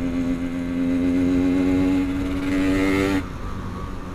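Yamaha RX-King two-stroke single-cylinder motorcycle engine pulling under throttle at a steady, slowly rising pitch, then dropping off abruptly about three seconds in, leaving road and wind noise.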